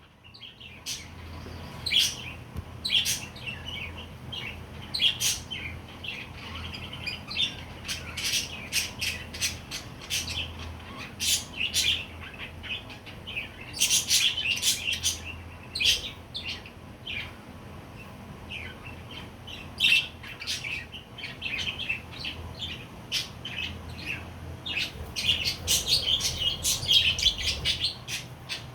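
Budgerigars chirping and chattering: a constant stream of short, high chirps and squawks, busiest near the end.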